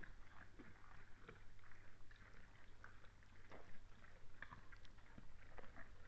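Red deer feeding at a pile of scattered feed: faint, irregular crunching and rustling as they chew and nose through it, over a steady low electrical hum.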